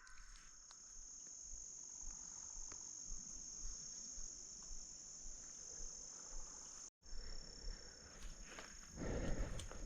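Faint steady chorus of insects, a continuous high-pitched buzz that cuts out briefly about seven seconds in. A brief rustling noise rises near the end.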